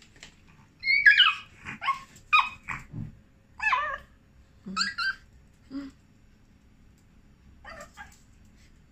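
Small long-haired dog yipping and whining in short high-pitched calls, impatient for its food. A run of calls comes between about one and six seconds in, then two faint ones near the end.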